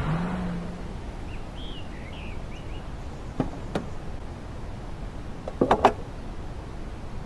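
A car rolling to a stop as its running sound fades out, with a few bird chirps. Then come two sharp clicks as the car door opens, and near the end a quick run of louder clicks at the fuel filler as the pump nozzle is handled.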